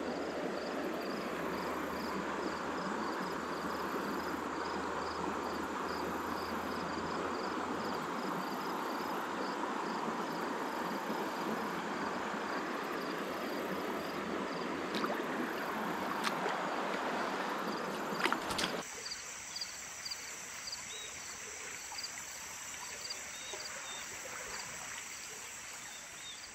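Creek water running steadily, with insects chirping in a steady, even rhythm on top. A few sharp clicks come shortly before the water sound cuts off abruptly, leaving quieter insect chirping that fades out at the end.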